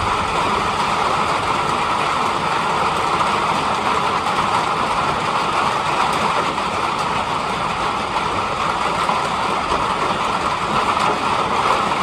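Heavy rain falling steadily, an even, unbroken hiss with no thunderclaps.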